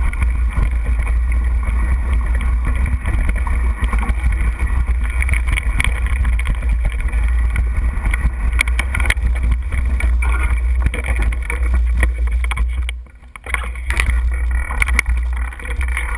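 Mountain bike riding over rocky singletrack, heard through a GoPro: a steady low rumble of wind and vibration on the camera, with constant rattling and clicking of the Superfly 29er and its tyres over stones. The noise dips sharply for a moment about thirteen seconds in, then the rattling picks up again.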